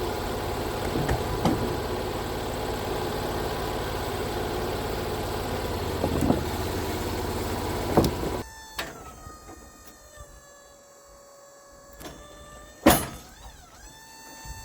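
Portable band sawmill running loudly and steadily, its engine and blade noise together. About eight seconds in it drops away abruptly, leaving a quieter steady whine with a few sharp clicks, the loudest one near the end.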